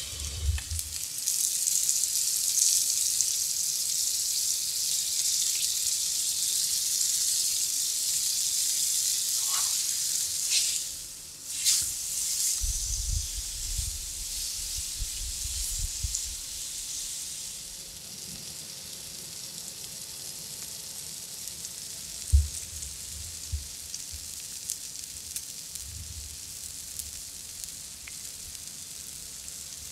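Seasoned steak and diced sweet potatoes sizzling on an electric griddle, with a spatula turning them near the middle. The sizzle is stronger in the first half and settles lower after that, and there is one sharp knock a little past two-thirds of the way through.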